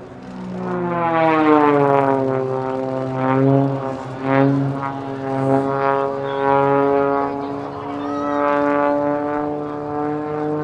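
Piston engine and propeller of an aerobatic airplane in flight. The drone swells about a second in and its pitch slides down, then it holds a fairly steady note that rises and falls in loudness as the plane manoeuvres.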